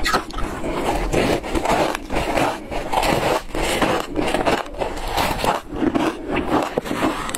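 Shaved ice dusted with matcha powder being bitten and chewed: a dense, steady run of crunching and crackling.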